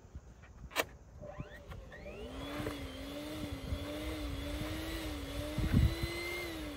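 Small electric balloon pump whirring as it inflates a balloon: it spins up about a second in and runs steadily with a slightly wavering pitch. A sharp click comes near the start and a dull thump near the end.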